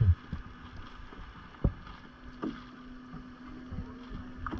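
Canoe being paddled: paddle strokes in the water with sharp knocks of the paddle against the canoe hull, the loudest at the very start and another about a second and a half in.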